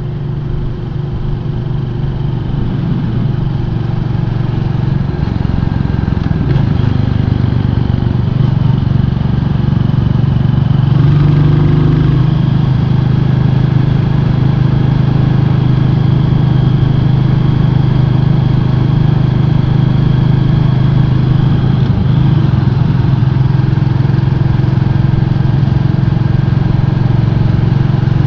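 Royal Enfield 350 motorcycle's single-cylinder engine running on the road, with the steady rush of riding noise. It grows louder over the first several seconds and its note shifts a couple of times before settling into a steady cruise.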